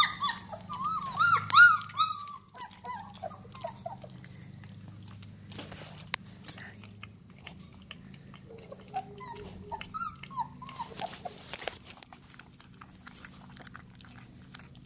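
Young puppies whining and squealing in short, high, rising-and-falling cries: one loud run over the first few seconds, then a softer run about ten seconds in. Small wet clicks and smacks from the litter eating run between the cries.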